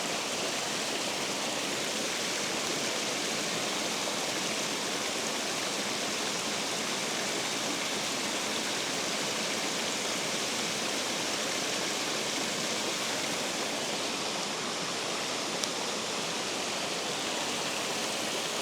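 Steady rush of water pouring through a spillway, with one faint click near the end.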